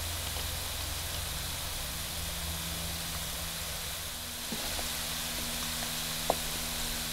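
Minced garlic deep-frying in canola oil on medium heat: a steady, even sizzle of bubbling oil. A light tap of the wooden spatula against the pan about six seconds in.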